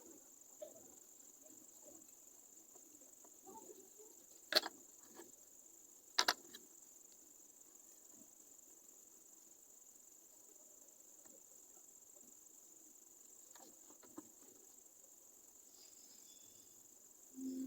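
Faint steady high-pitched hum, with two sharp clicks about four and a half and six seconds in, the second a quick double click, and a few fainter ticks.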